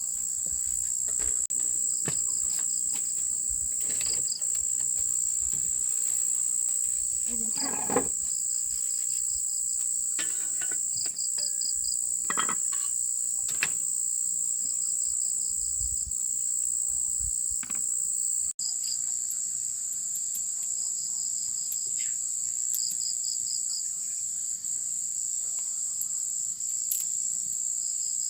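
Insects trilling: a steady high-pitched drone with short rapid chirp trains repeating every few seconds, joined by a few faint knocks and rustles.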